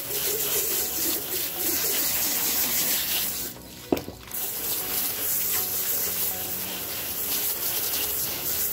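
Garden hose on a high-pressure spray setting, jetting water onto a plucked, eviscerated broiler chicken carcass: a steady hiss and splatter. The spray stops briefly a little before halfway, with a single click, then starts again.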